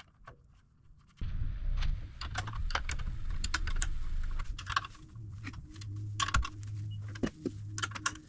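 Hand tools and suspension hardware clicking and clinking in quick, irregular taps as bolts are fitted and tightened. A steady low hum sets in about a second in.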